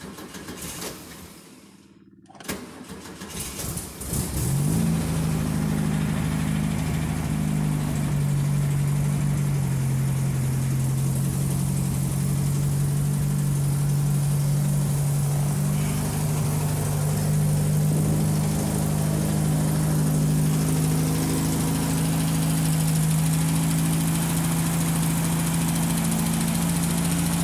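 Starter cranking the air-cooled flat-four engine of a 356 Speedster replica. It catches about four seconds in and settles into a steady high idle on the choke and carburettor, with Beetle-like engine noises.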